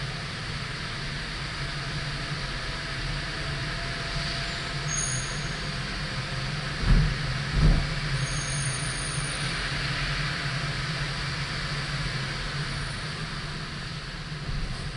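Steady road and engine noise of a car driving on city streets. About seven seconds in come two dull thumps under a second apart, and faint high-pitched squeals come and go.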